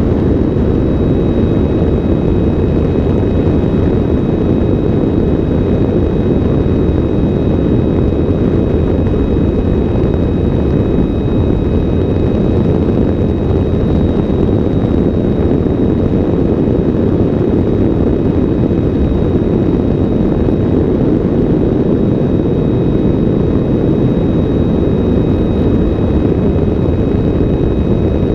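Steady rush of wind and propeller noise from the Synchronus Goat electric ultralight in powered flight, heard from a camera on its wing, with a faint steady high whine above it.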